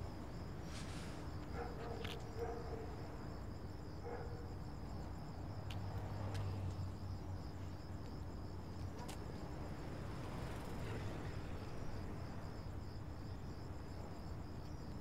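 Crickets chirping in a steady, high, pulsing trill over a faint low background hum.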